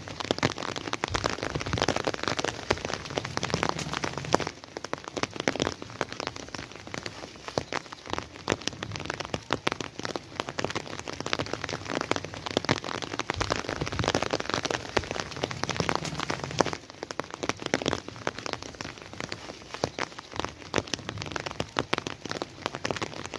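Steady rain falling on plants, walls and wet ground, a dense stream of individual drop hits close by.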